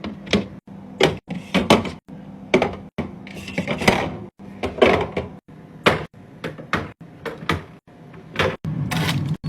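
Repeated knocks, clacks and thuds as items and containers are set into a refrigerator and its door and shelves are handled, over a low steady hum. Short dead gaps break up the sounds.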